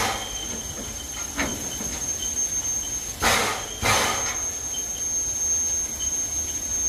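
Edison No. 1 steam locomotive chuffing slowly with its cylinder cocks open: a pair of sharp steam blasts about half a second apart, about three seconds in, and a fainter one earlier, over a steady hiss of steam.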